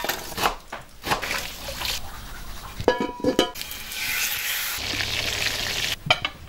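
Cooking sounds cut quickly one after another: scraping and stirring, liquid, and a stretch of frying sizzle, with a brief ringing tone about three seconds in.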